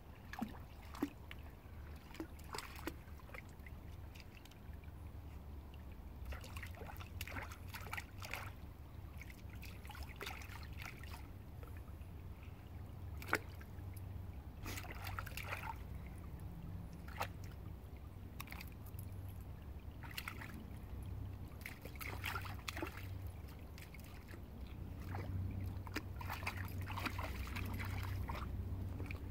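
A dog wading in a shallow stream, its paws splashing and sloshing the water in irregular bursts, with a few sharp clicks and a steady low rumble underneath.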